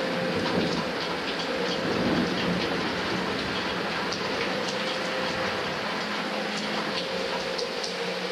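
Steady heavy rain, a dense hiss with many small drops ticking through it, and a faint steady low tone underneath.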